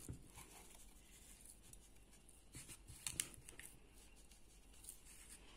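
Near silence: a few faint soft clicks and rustles about halfway through, as a wooden spoon works in minced meat and a powder is tipped onto it from a paper cup.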